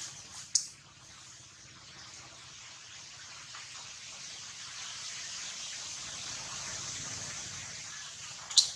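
Steady high-pitched hiss of outdoor background noise that slowly swells and eases, with a sharp click about half a second in and a louder sharp click near the end.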